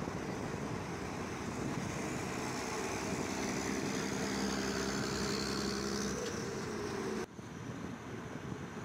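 Street traffic: passing vehicles and engines over steady road noise, with a steady engine hum standing out from about three seconds in. About seven seconds in it cuts off abruptly to a quieter background.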